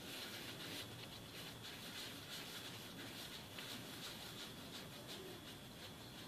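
Hands rolling pieces of soft yeast dough into balls on a stone worktop: faint, irregular rubbing and light pats of palm and dough against the counter.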